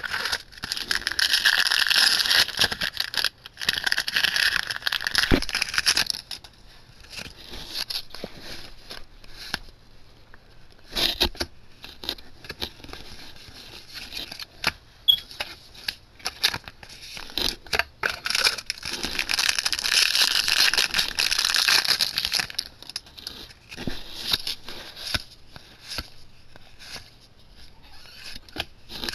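Foil booster pack wrappers crinkling and tearing open in two long loud stretches, one about a second in and one about eighteen seconds in. Between them, trading cards being handled and flipped through make light clicks and rustles.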